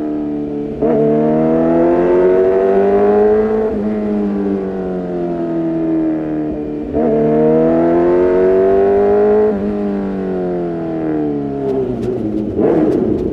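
Kawasaki ZX-6R's inline-four engine through an Arrow Pro-Race exhaust, twice opening up with the pitch climbing for about three seconds, then easing off as the throttle closes. A few sharp pops near the end.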